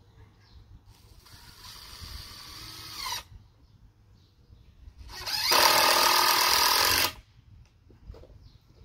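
Cordless power tool's electric motor running in two bursts of about two seconds each, the second louder; each run winds up and then cuts off sharply.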